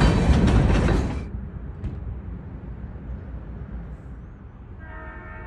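Covered hopper cars of a freight train rolling loudly past on the rails, cut off about a second in; then a low steady rumble from a locomotive. Near the end a diesel locomotive horn starts sounding, several steady tones together.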